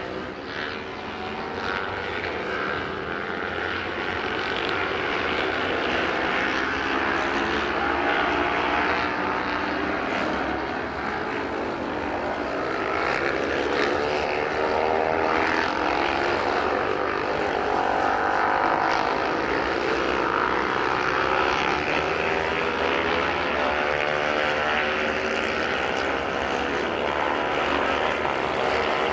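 Engines of several vintage racing motorcycles running hard at speed, their overlapping pitches rising and falling as the bikes accelerate and shift gears.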